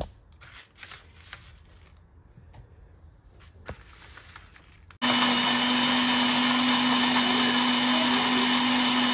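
A few light knocks, then an electric mixer grinder starts about five seconds in and runs steadily with an even hum, grinding coconut paste and jaggery in its steel jar.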